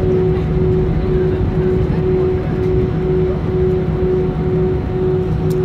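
Airbus A320 cabin noise while taxiing: a steady engine and airframe rumble, with a humming tone that pulses about twice a second.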